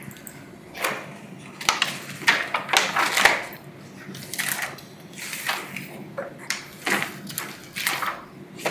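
Irregular clicking, clattering and rustling of objects being handled close to a desk microphone, in clusters of sharp clicks and crinkles.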